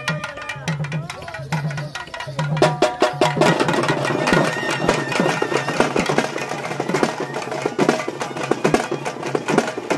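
Tamil folk drums accompanying a karakattam dance: barrel drums and a large stick-beaten drum played live in a fast, dense rhythm, getting louder and fuller about two and a half seconds in.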